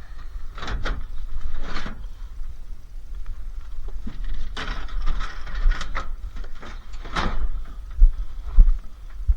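Scraping and clattering of scrap being handled, with a couple of heavy thumps near the end.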